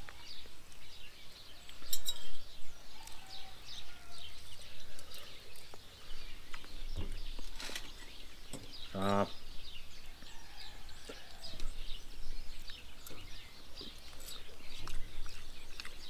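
Small birds chirping and singing in the background, with a few sharp clinks of forks on plates and a brief hum from a voice about nine seconds in.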